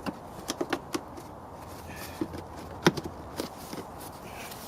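Plastic scuttle panel under the windscreen being slid and pressed into place: a scattering of short clicks and knocks, the loudest about three seconds in.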